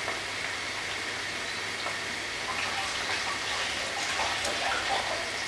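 Coated chicken pieces deep-frying in very hot oil: a steady bubbling sizzle.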